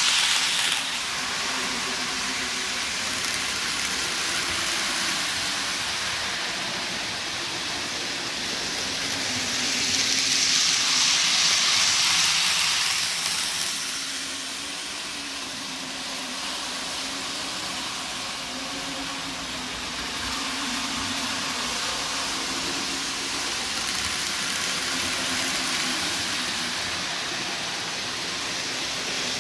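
N gauge model trains running on the layout's track: a steady whirr of small locomotive motors and metal wheels on rail. It grows louder between about ten and thirteen seconds in as a train passes close.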